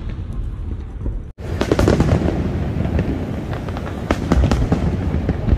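Fireworks display: booms and dense crackling from many shells bursting in quick succession, with a brief break about a second in where the recording cuts.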